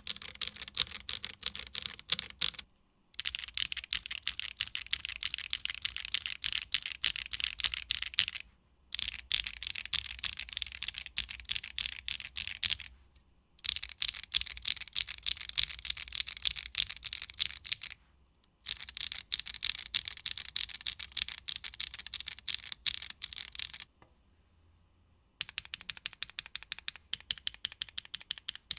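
Fast continuous typing on a Tofu65 2.0 mechanical keyboard with Gateron Blizzard tactile switches, a polycarbonate plate and ABS keycaps. It comes in several runs of rapid keystrokes, each a few seconds long, with short pauses between them.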